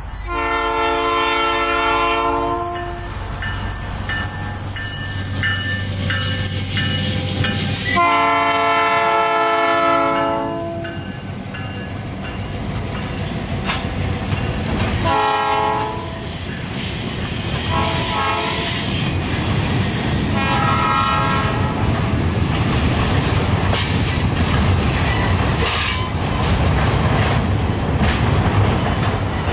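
Northwestern Pacific freight train's diesel locomotives sounding the air horn: two long blasts, then several shorter ones. The engines drone beneath, and the train rolls by with wheels clacking over the rail joints and some squealing.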